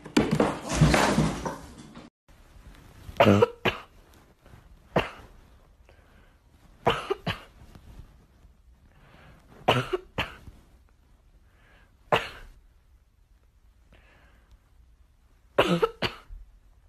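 About two seconds of loud noisy sound, then short coughs, often two in quick succession, repeated every two to three seconds.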